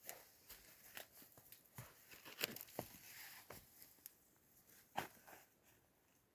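Footsteps crunching on the forest floor, quiet and irregular, with a few sharper steps; they stop about five and a half seconds in.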